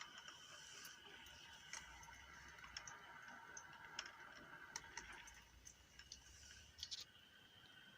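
Faint, irregular light clicks and ticks over a faint steady high hum.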